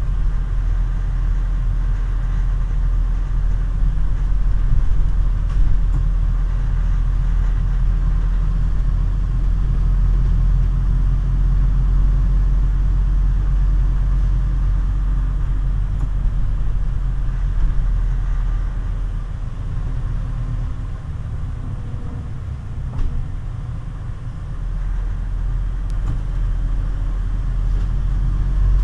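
Inside a Scania CN280UB city bus under way: the 9.3-litre Scania DC9 diesel running with a steady low rumble from engine and road. It eases off for a few seconds past the middle, then picks up again near the end.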